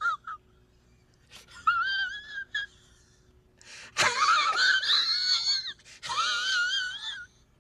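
A person's high-pitched, squeaky wheezing laugh, wavering in pitch, coming in three bursts; the loudest burst starts about four seconds in with a sharp click.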